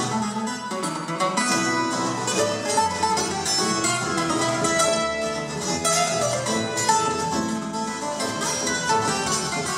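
Colombian Andean string music played live: tiples and requinto plucked and strummed in quick strokes over a double bass.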